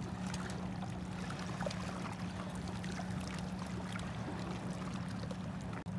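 Small waves lapping and trickling against a rocky lakeshore over a steady low hum, with scattered small ticks. The sound cuts out for an instant near the end.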